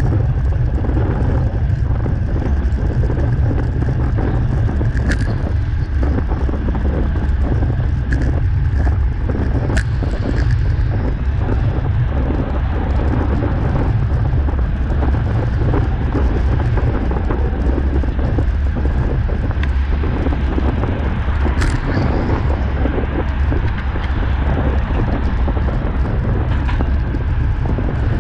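Wind rushing over the microphone of a camera mounted on a road bike's handlebars while riding: a steady low rumble, broken by three sharp clicks.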